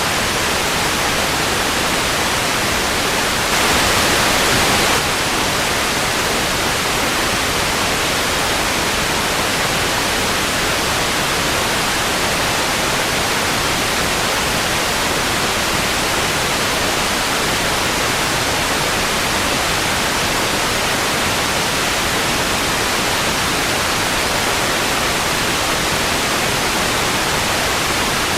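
Analog television static: a steady, even hiss with no tones. It grows slightly louder and brighter for about a second and a half, a few seconds in.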